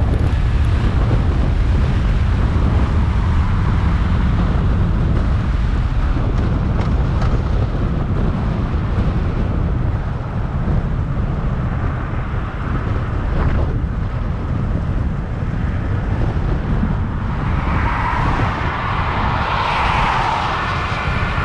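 Kawasaki Vulcan 900's V-twin engine running at road speed under steady wind rush on the camera. A louder rushing sound builds near the end.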